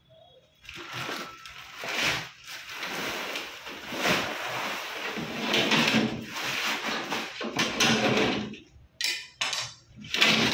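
Large round metal plates being shifted and scraped against their metal rod and the concrete floor, with clattering. The scraping runs for several seconds, then breaks into two shorter bursts near the end.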